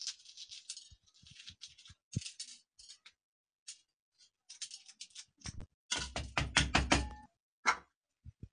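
Small knife clicking and tapping while red chillies are cut and their seeds scraped out over a steel plate, with a quick run of knocks about six seconds in.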